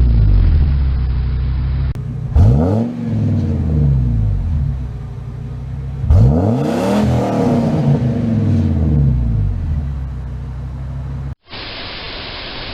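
A van's engine revs and falls back to idle, then starts up twice. Each time it catches with a quick rise in revs that sweeps down to a steady idle. Near the end the engine sound cuts off and a steady rushing noise of a waterfall takes over.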